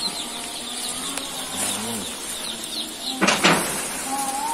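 A brooding pen of young joper chicks peeping, a continuous chorus of short falling chirps. About three seconds in, a brief loud rustle cuts across it.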